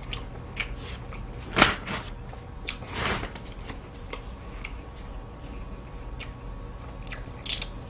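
Scattered small clicks and taps of handling at a table, with a brief paper-napkin rustle about three seconds in as hands are wiped, and one sharper click about a second and a half in.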